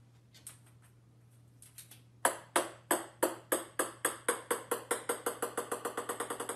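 A small ball bouncing on a hardwood floor and settling. The bounces start about two seconds in, each a sharp ringing tap, and they come faster and quieter: about three a second at first, six or more a second by the end.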